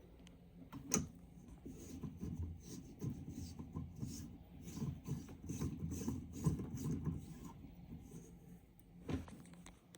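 Irregular rubbing and scraping of something being handled, with a sharp click about a second in and another near the end.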